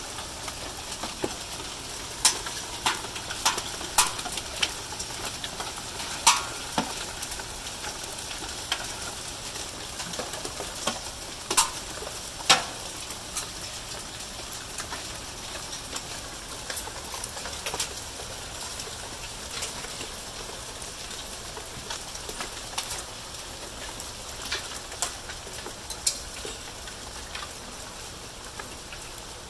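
Hail falling in a steady hiss, with irregular sharp clacks and pings of hailstones striking hard surfaces, a few ringing briefly.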